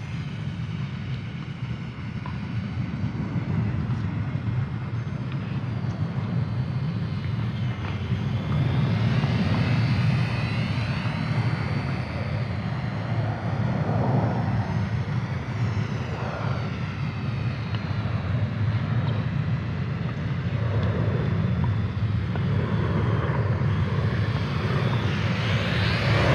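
Electric motor and three-blade propeller of an Eachine Spitfire 400 mm micro RC warbird in flight. The whine rises and falls in pitch as the throttle is worked during slow flight and stall tests, and grows louder as the plane passes closer.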